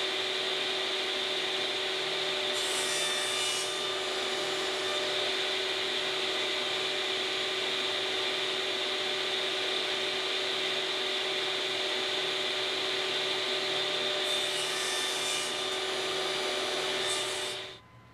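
Table saw running steadily with a constant whine as thin mahogany strips are crosscut on a miter sled. Twice, about two and a half seconds in and again about fourteen seconds in, the blade bites through a strip for about a second, adding a brief higher rasp. The sound cuts off suddenly near the end.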